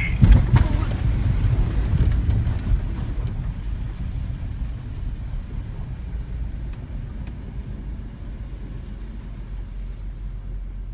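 Low, steady rumble of a pickup truck driving on a rough, wet dirt track, heard inside the cab, with several knocks and thumps in the first three seconds; the rumble then eases off gradually.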